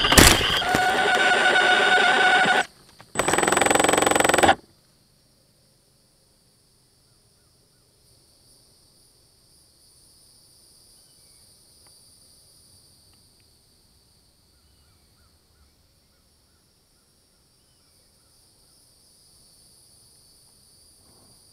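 RC plane's motor running loud and whining over rushing air, with a sharp crack just after the start as it hits the trees. It drops out briefly, comes back, and cuts off abruptly about four and a half seconds in. After that there is near silence with only faint steady hiss while the downed plane lies still in the brush.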